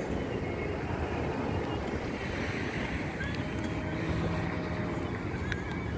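Steady rushing noise of wind buffeting the microphone outdoors, with a faint low hum underneath.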